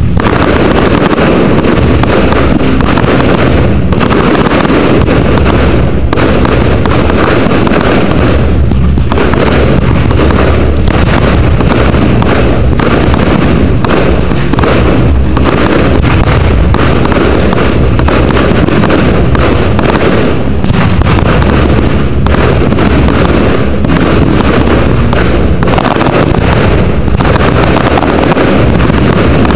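Professional fireworks display: a dense, unbroken barrage of aerial shell bursts and launches, bang after bang with no pause, loud throughout.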